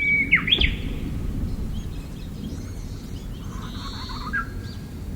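Japanese bush warbler song: the end of a long held whistle runs straight into a quick up-and-down flourish, the 'hokekyo' of the call, and a second, softer jumble of notes follows about three seconds in. The uploader is not sure it is a bush warbler rather than a mimicking Chinese hwamei. Steady low background noise lies under it.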